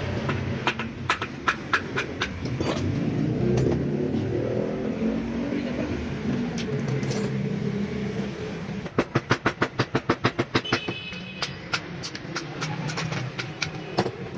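An engine running steadily, with scattered clicks and knocks and a quick, even run of about a dozen sharp taps about nine seconds in.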